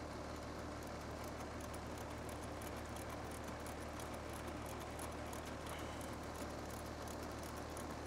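Split-system AC condensing unit running steadily, its scroll compressor and condenser fan giving an even hum, while the liquid-line service valve is being closed to start a pump down.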